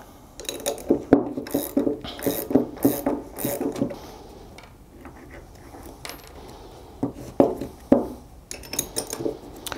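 Small metal nuts and washers clinking and clicking as they are worked off the ends of the threaded tie rods of a pneumatic air control valve block. Scattered clicks through the first few seconds, a quieter stretch in the middle, then more clinks near the end.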